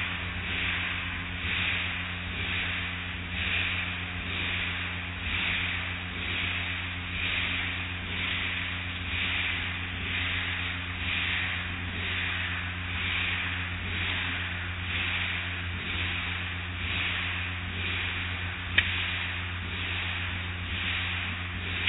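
Automatic car wash running: an overhead mitter curtain of cloth strips swishes across a car with soapy water spraying, swelling and fading about once a second over a steady machinery hum. One sharp click near the end.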